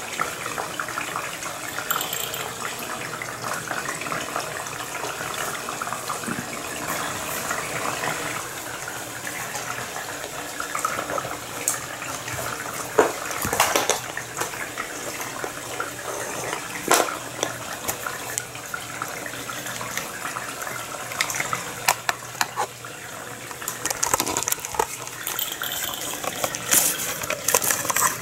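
Steady rush of running water, with a few sharp knocks partway through and more near the end.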